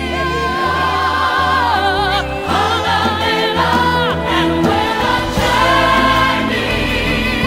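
Background music with choral singing: voices holding and gliding between notes with vibrato over sustained low accompaniment.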